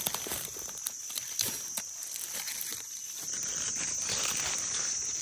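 Dry leaf litter rustling and crackling in irregular bursts as hands pick through it, over a steady high-pitched insect drone.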